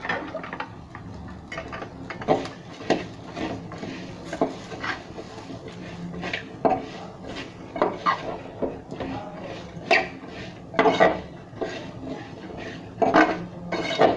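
Metal spoon scraping and clinking against an aluminium pot as it stirs spices, poppy seeds and small onions being roasted for a masala. The strokes are irregular, with sharper clanks every second or two.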